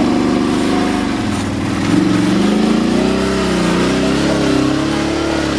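ATV engine running while riding, heard close from the machine itself, its pitch rising and falling with the throttle from about two seconds in.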